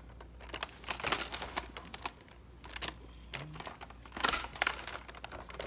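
Plastic clicks and rattles from a Nerf blaster being handled with its jam door open, in scattered bunches.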